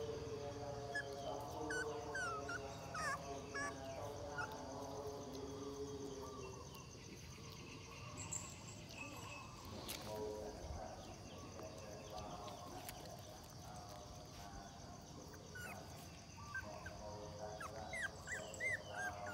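Young puppies whimpering, with short high squeaks that come thickest in the first few seconds and again near the end.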